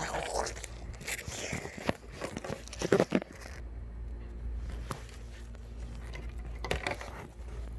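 Handling noise: a fabric plush toy and fingers rustling and rubbing close to the phone's microphone, with scrapes and knocks, the loudest cluster about three seconds in.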